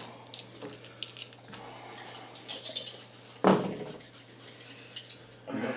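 Small plastic dice clicking and rattling as they are rolled and handled on a gaming mat, with one louder knock about three and a half seconds in.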